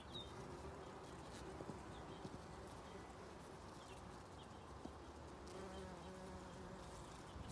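Faint, steady buzzing of a bee among flowers, with a lower, stronger drone for a second or so near the end.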